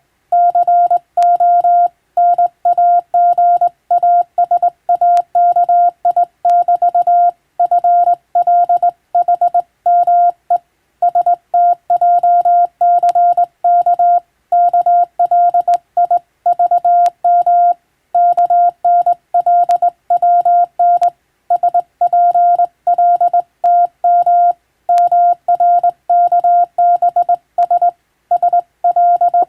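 Morse code (CW) telegraphy: a single steady mid-pitched tone keyed on and off in fast dots and dashes, with short gaps between characters and words.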